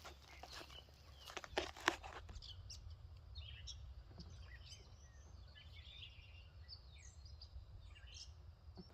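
Faint outdoor ambience: scattered short, high bird chirps, a few sharp knocks or taps between about one and two seconds in, and a steady low rumble.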